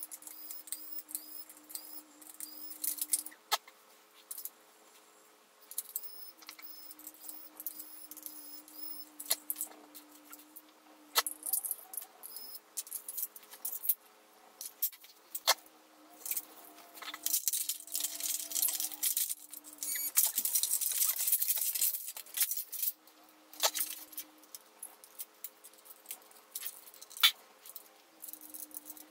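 Electric screwdriver motor whirring in repeated spells of a few seconds while a laptop is dismantled. Sharp clicks and clatter of small screws, metal and plastic parts come between, with a stretch of busier scraping and rattling in the middle.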